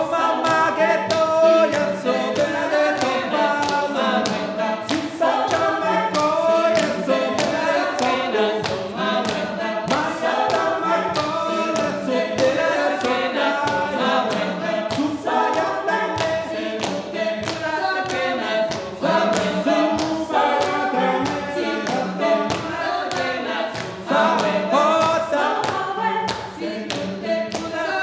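A small group of voices singing an a cappella circlesong, layered improvised vocal parts, over a steady beat of hand claps.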